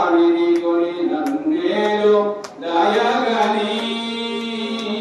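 Devotional mantra chanting by one voice in long, held, sing-song notes. Two sharp clicks sound over it in the first half.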